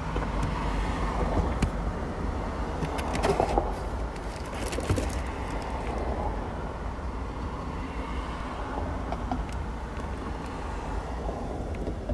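Steady low rumble like a motor vehicle's engine or road traffic, with a few light clicks about three and five seconds in.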